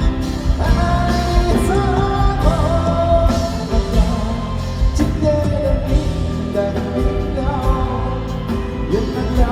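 A live band playing a slow pop ballad, with drum hits under a melody sung in long held notes.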